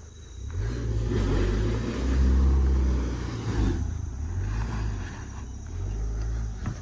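Car engine revving under load as the car climbs a steep slope, swelling about half a second in and loudest around two to three seconds, then easing to a lower, uneven drone.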